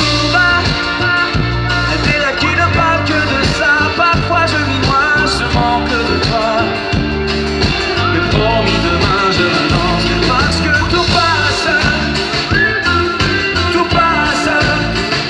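Live pop-rock band playing loud through a concert PA, with a steady drum beat, electric and acoustic guitars and keyboards.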